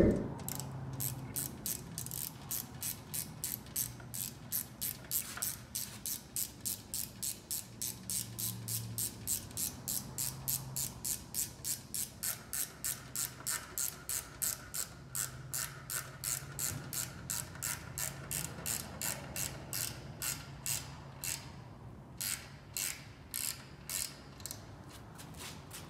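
Hand ratchet wrench clicking as bolts are turned on a Corvette C6 engine block: a steady run of sharp clicks, about two to three a second, with a brief pause near the end.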